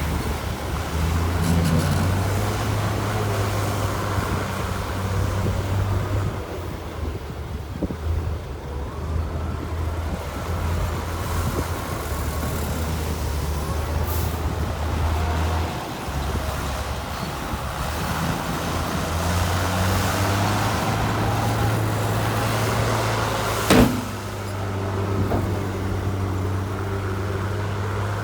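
Heavy diesel earthmoving machinery running, with engine revs rising and falling. A single sharp clank comes near the end.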